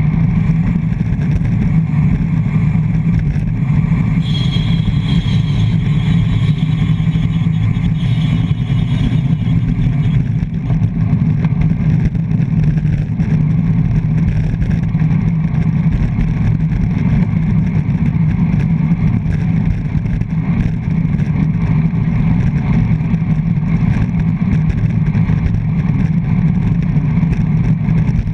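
Wind rushing over a handlebar-mounted action camera on a road bike at race speed, together with tyre noise on the asphalt: a loud, steady low rumble. A faint high whistle sounds from about four to ten seconds in.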